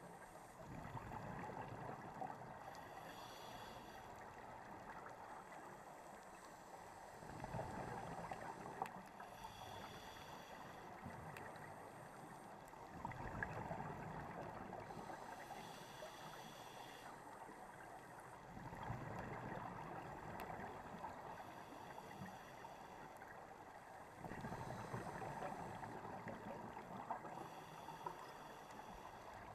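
Scuba diver breathing through a regulator underwater: five slow breath cycles, each a louder rush of exhaled bubbles followed by the thinner hiss of the inhale, one every five to six seconds.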